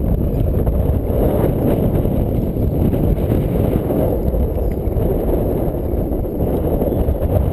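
Wind buffeting the microphone: a loud, steady low rumble with no distinct knocks or splashes standing out.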